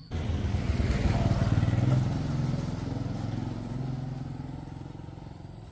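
A motor vehicle engine running, coming in suddenly, loudest about one to two seconds in, then fading steadily as it moves away.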